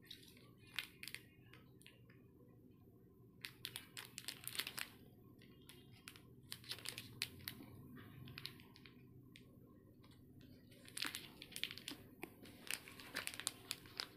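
Plastic wrappers of Chupa Chups soft-candy packets crinkling as they are handled, in several short bouts of crackling.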